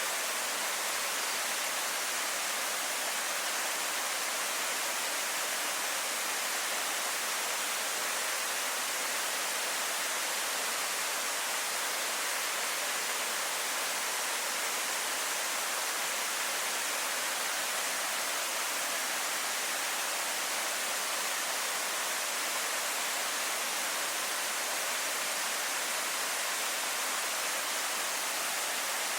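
Waterfall: falling water making a steady, unbroken rushing hiss, bright and with little low rumble.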